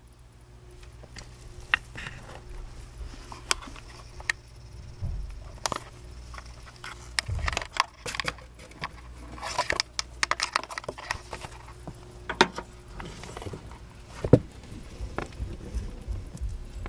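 Irregular light taps, clicks and rustling from handling in the enclosure, with a stretch of denser rustling about midway, over a low steady hum.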